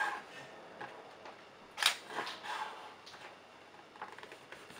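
Chef's knife cutting smoked pork on a wooden cutting board, with one sharp knock of the blade on the board a little under two seconds in and a few fainter taps around it.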